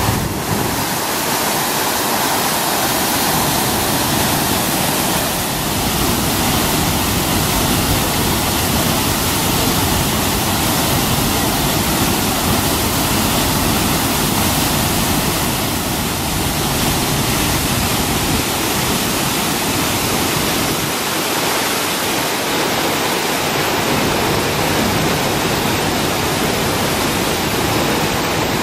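Dam release: water jetting from a concrete dam's outlet into the churning stilling basin below, a loud, steady rush.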